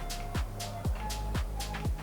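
Background music with a steady dance beat: a kick drum about twice a second, with bright percussion hits between the kicks.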